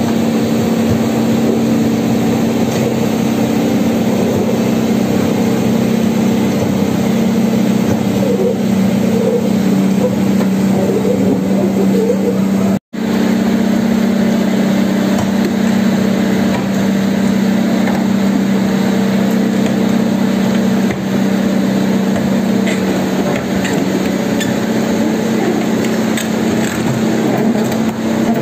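Kobelco SK200 hydraulic excavator's diesel engine running steadily while the machine works its boom and bucket. The sound cuts out for an instant about halfway through.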